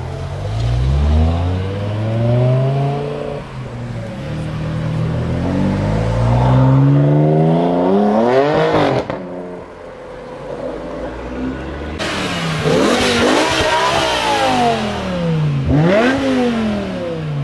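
Performance car engines revving hard. Two long rising sweeps come as the revs climb under acceleration. Then, after a cut, there are several quick sharp rises and falls from a BMW M5 E60's 5.0-litre S85 V10.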